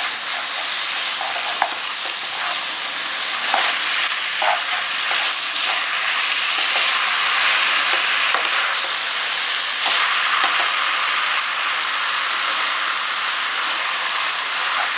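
Hakka-style chicken noodles sizzling steadily in a hot pan on a medium flame while they are stirred and tossed. Occasional short clicks and scrapes of the stirring utensil come through the sizzle.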